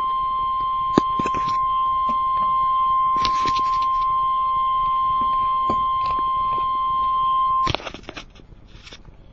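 Weather-radio warning alert tone: a single steady high beep that holds for nearly eight seconds and then cuts off abruptly, with a few clicks and crackles over it, the sharpest about a second in. The tone announces that a severe thunderstorm warning is about to be read.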